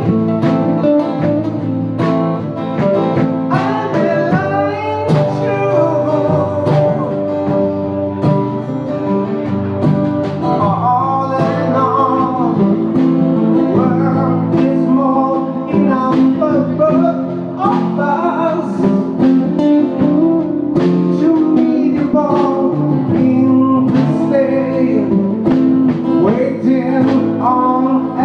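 Live acoustic band playing: strummed acoustic guitars and a drum kit, with a man singing a melody into a microphone over them.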